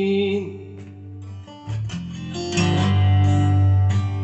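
A recorded song played through an Akai AA-2250 stereo receiver: a held sung note ends about half a second in, then strummed acoustic guitar with bass carries an instrumental break, growing fuller about two and a half seconds in.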